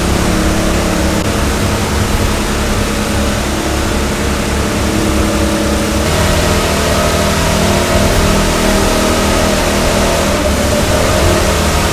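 An engine running steadily, its pitch stepping up slightly about six seconds in.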